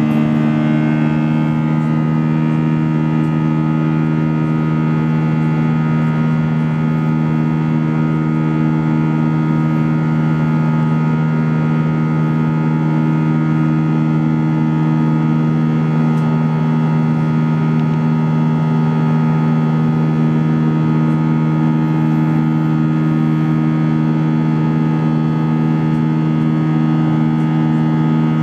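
Steady cabin drone of an Airbus A319's CFM56 turbofan engines during the climb after takeoff, heard from a window seat beside the engine. It is a loud, even hum of several held tones over a broad rush of air, unchanging throughout.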